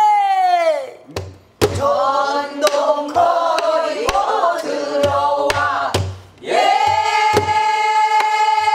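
Pansori singing with a buk barrel drum. A long held sung note bends down and ends within the first second. Several voices then sing together over sharp strokes of the drum, and near the end a new long held note begins.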